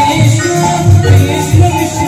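Harinam sankirtan devotional music: a drum beating a quick, steady rhythm with jingling hand cymbals and held melody notes.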